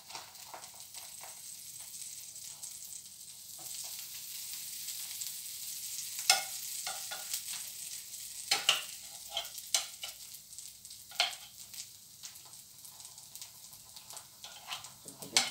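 Mixed-vegetable dosa frying on a hot pan, a steady sizzle as butter melts on it, with a few sharp clicks of a utensil against the pan, the loudest about six seconds in and one at the end.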